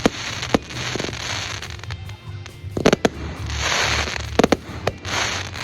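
Fireworks going off: several sharp bangs, some in quick pairs, with spells of loud hissing crackle as the shells burst.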